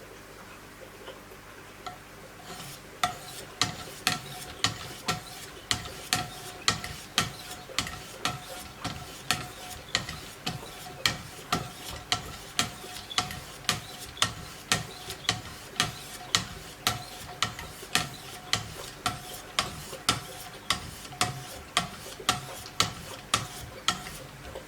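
Steady back-and-forth strokes of Wicked Edge sharpening stones along a knife blade, about two a second, each starting with a sharp click and a brief ring of the steel. The strokes begin a couple of seconds in and stop just before the end.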